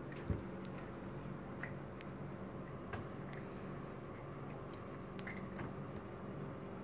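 A few faint, scattered clicks and taps of a small plastic bottle cap being worked by hand, over a low steady hum.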